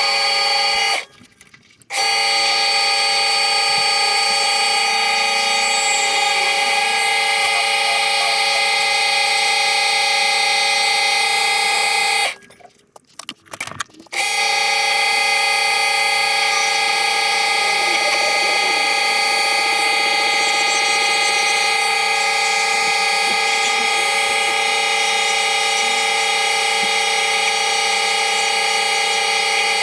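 Lathe running at speed, a steady whine made of several steady tones, while acrylic blanks on a pen mandrel are turned down with a chisel. The sound cuts out abruptly twice, about a second in and again around twelve seconds in, each time for a second or so.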